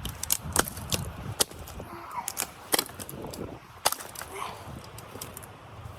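A run of irregular sharp cracks and snaps, about a dozen in all, over a low rumble.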